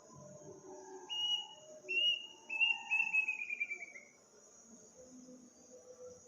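A bird whistling at night: a few drawn-out whistles, then a quick run of short notes sliding down in pitch. Steady high insect chirring runs underneath.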